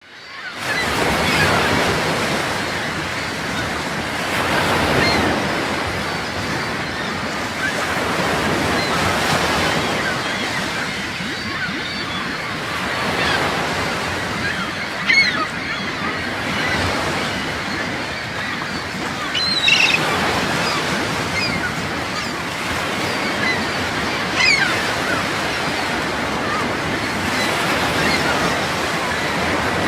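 Ocean waves washing onto a shore, swelling and easing every few seconds, with a few short high bird calls over them.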